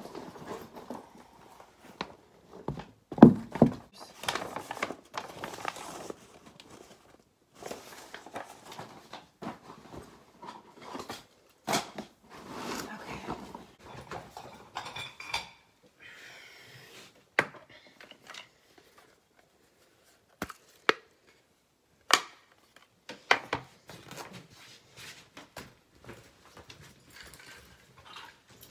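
Clothes and bags rustling as things are sorted by hand, with scattered knocks and thunks of items being moved and set down. A quieter stretch falls just past the middle.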